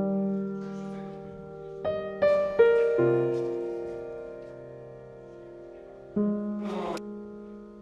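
Slow background piano music: sustained chords that fade away, with new notes struck about two to three seconds in and again about six seconds in.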